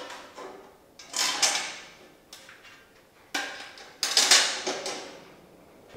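A sheet-metal pedal car arch panel being fitted and bolted onto a steel jig: a few sudden metal knocks, each followed by a short scraping rattle that fades.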